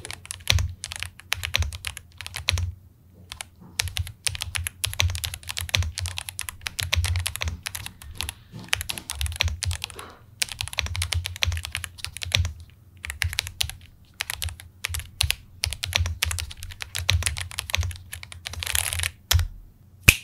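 Typing on an Ajazz AK820 Max Plus 75% aluminium mechanical keyboard: fast runs of key clicks broken by brief pauses.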